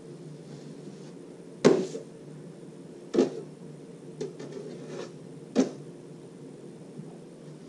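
Sharp metal clicks from drywall finishing knives as joint compound is loaded and worked, three loud ones and a fainter one, over a steady low hum.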